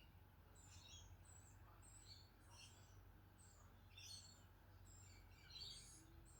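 Budgerigar chirping and chattering softly: a run of short, high chirps, about two a second, over a faint low hum.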